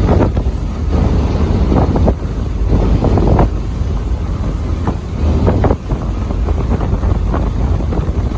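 Wind buffeting the microphone: a heavy low rumble with irregular gusty crackles that rise and fall.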